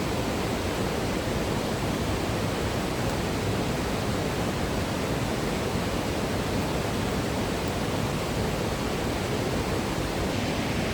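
Waterfall and rushing creek water, a steady, even rush of white water.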